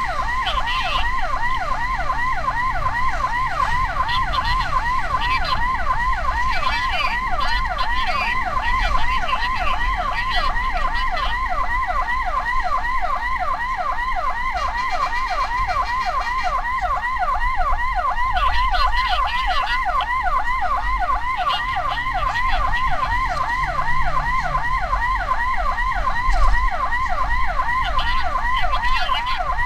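Ambulance electronic siren in a fast yelp, about four rising sweeps a second, repeating without a break over a low vehicle rumble.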